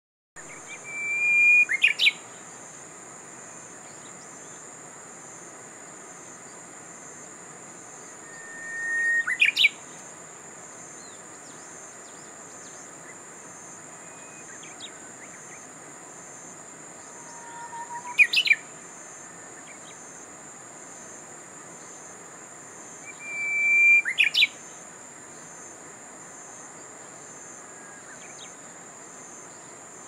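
Japanese bush warbler (uguisu) singing its 'hō-hokekyo' song four times, roughly every six to eight seconds: each a long whistle that swells in loudness, then a quick sharp flourish. A steady high-pitched buzz runs underneath.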